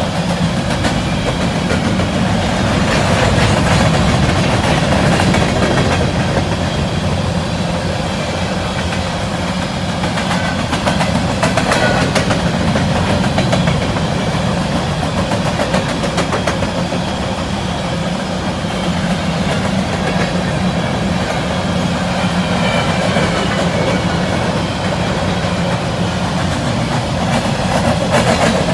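Steel wheels of a passing freight train's covered hopper cars rolling on the rails: a steady rumble with the clickety-clack of wheels crossing rail joints.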